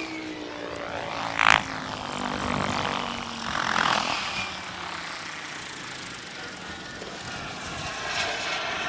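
Radio-controlled helicopter flying, its rotor and motor giving a steady drone. About a second and a half in there is a short, loud burst of noise, and another, softer swell of noise follows a couple of seconds later.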